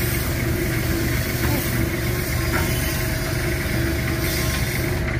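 Garden hose spray nozzle hissing as water is sprayed onto a steel shovel blade to rinse it, over a steady idling engine hum.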